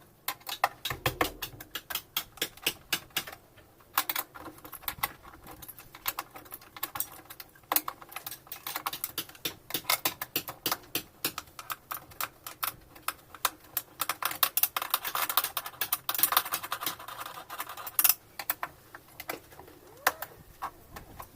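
Irregular, rapid clicking and clattering of small hard parts and hand tools being handled during disassembly of a top-load washing machine, with a busier run of clicks around the middle.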